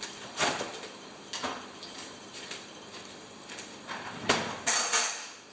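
Kitchen handling noises: a few separate knocks and clacks, the loudest near the end, followed by a brief rustle, as things are picked up and set down.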